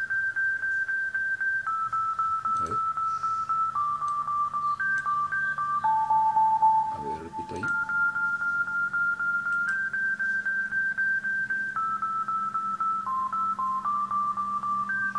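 A beat playing back: a pure-toned synthesizer melody of single held notes stepping up and down in pitch, over a steady low note. It is a new sound being auditioned as a layer in the beat.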